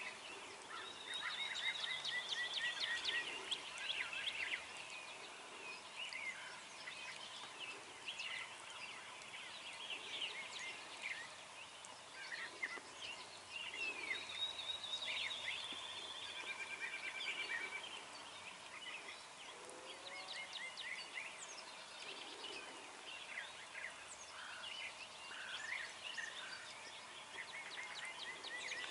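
A songbird dawn chorus: many birds singing at once, with overlapping chirps, whistles and rapid trills.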